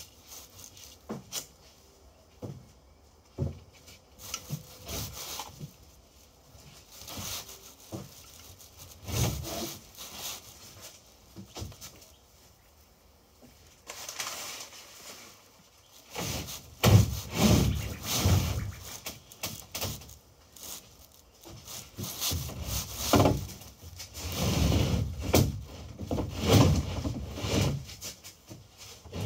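Plywood deck panels being shifted and dry-fitted on a boat's wooden frame. There are scattered light knocks at first, then from about halfway louder bouts of wood scraping and sliding against wood.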